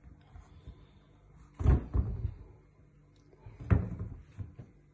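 Two dull thumps of a cupboard door being opened and shut: a double knock about one and a half seconds in, and a single one about two seconds later.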